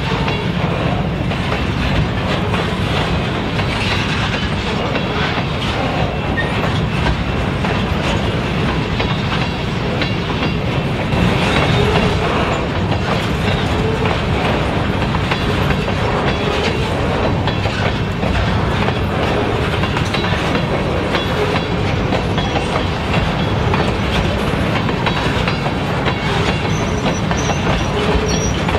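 Covered hopper cars of a grain train rolling past on jointed rail. The wheels click steadily over the rail joints in a continuous clickety-clack.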